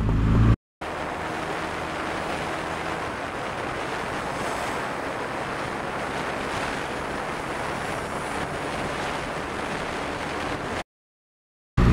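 Steady wind rush on a motorcycle-mounted action camera's microphone while riding, with the engine of a Benelli TNT 300 faint beneath it for the first few seconds. It starts abruptly after a short dropout about half a second in and cuts off abruptly near the end.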